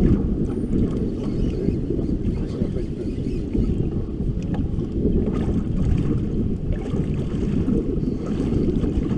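Wind buffeting the microphone: a steady, dense low rumble, with a few faint small clicks and knocks now and then.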